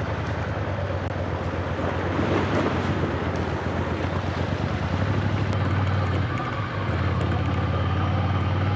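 Ducati Scrambler's L-twin engine running steadily at low revs, held in first gear so the engine brakes the bike down a steep descent, with wind noise on the microphone.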